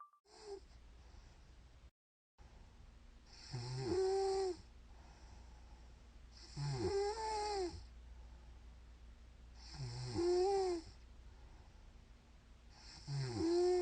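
A woman snoring in her sleep: four snores about three seconds apart, each about a second long, starting with a low rattle.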